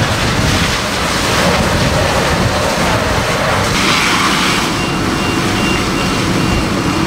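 Fire hose spraying a water jet into a burning building: a loud, steady rushing hiss. A faint row of short, evenly spaced high beeps comes in during the second half.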